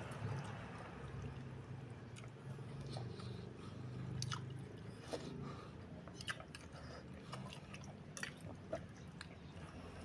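Close-miked chewing and biting of small beef meatballs and noodles, with scattered short wet clicks and crunches over a steady low hum.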